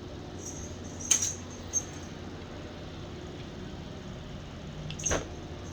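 A few short knocks and clicks during play with a dog's string toy: one about a second in, a smaller one just after, and another near the end. A steady low hum sits underneath.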